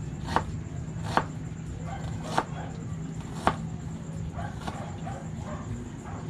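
Kitchen knife chopping an onion on a cutting board: four sharp, separate chops about a second apart.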